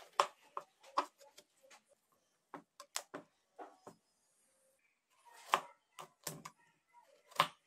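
Kitchen knife slicing watermelon on a plastic cutting board: irregular sharp knocks and crunches as the blade cuts through the rind and strikes the board, with a short pause a little after the middle.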